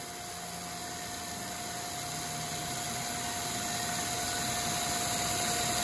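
Bridgeport-type CNC mill's carbide-insert face mill (Iscar APKT inserts) cutting a light cleanup pass of 3 or 4 thousandths on a 4140 heat-treated steel shaft. It runs as a steady hiss with a constant whine, growing gradually louder.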